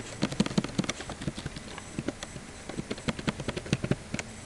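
Quick, irregular run of sharp clicks from a computer mouse and keyboard being worked close to the microphone, about four to five clicks a second.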